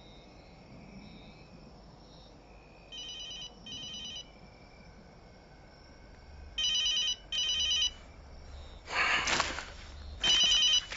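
Telephone ringing in the British double-ring pattern, brr-brr then a pause, faint at first and louder from about six seconds in. A brief noise comes just before the last ring.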